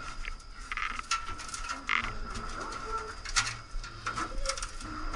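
Footsteps, knocks and scuffs of people climbing steep wooden stairs, over a steady high thin tone.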